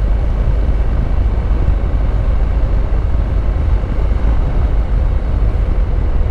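Honda NC750X parallel-twin motorcycle being ridden, its engine running steadily under a constant low rumble of wind on the microphone.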